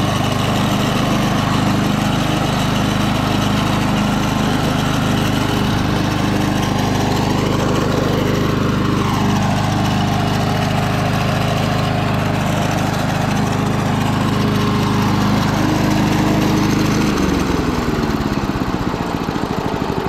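Early-1980s Snapper Series 6 self-propelled mower's small petrol engine running at a steady speed. About three-quarters of the way through, the engine slows and the pitch drops, settling into a slower, pulsing idle.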